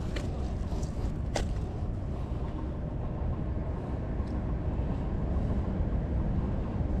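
Wind buffeting the microphone: a steady low rumble, with a couple of sharp clicks in the first second and a half.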